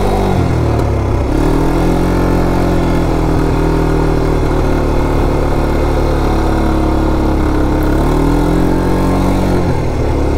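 200cc Polaris quad bike engine running under way. The engine note dips and climbs back about a second in, holds steady, then dips and picks up again near the end.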